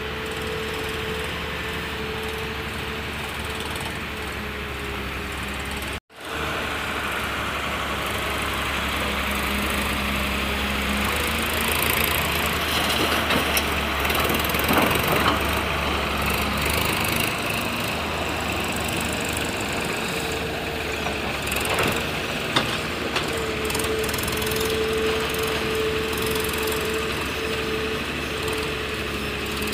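Diesel engines of a tracked excavator and farm tractors running steadily, with a held droning tone over the engine noise. The sound cuts out for a moment about six seconds in, and a few sharp clicks come later.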